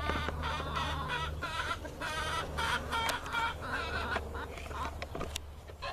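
Free-range chickens clucking, a quick run of short calls that thins out near the end.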